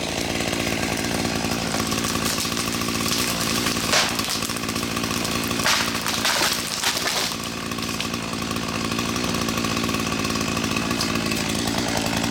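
Small chainsaw running steadily under load while cutting into a tree for a hinge cut, with a few louder, sharper moments about four seconds in and again from about six to seven seconds in.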